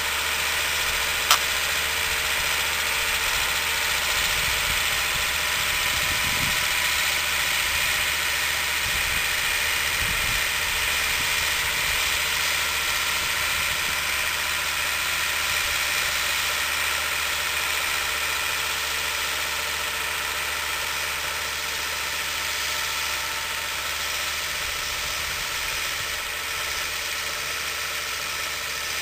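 SAME Laser 100 tractor's diesel engine running steadily under load while pulling a disc plough, growing slightly fainter near the end. A single sharp click about a second in.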